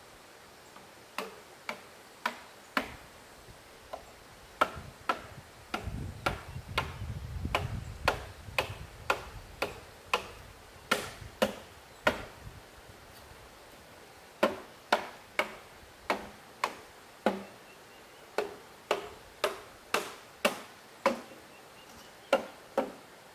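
Repeated sharp strikes of a hand tool on wood, such as chopping or hammering, roughly two a second, with a short pause about halfway through.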